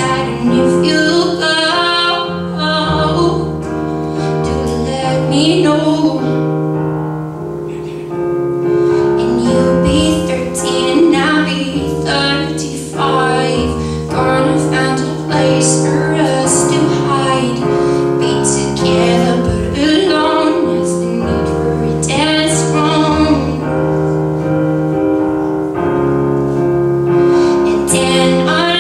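A female voice singing a melody over her own keyboard accompaniment of held, sustained piano chords.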